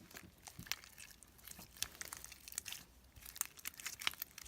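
Jelly-like slime, stiffened with a lot of activator, being pressed and squeezed by hand, giving many small irregular clicks and pops.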